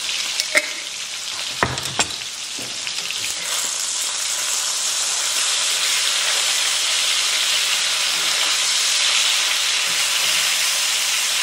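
Ground beef sizzling as it browns in a cast-iron skillet, the sizzle growing louder after about three seconds as the meat is turned with a wooden spatula. A few sharp knocks in the first two seconds.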